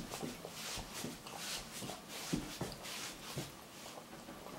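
Tabby cat feeding with its head in a ceramic cup: soft, wet mouth clicks at about three a second.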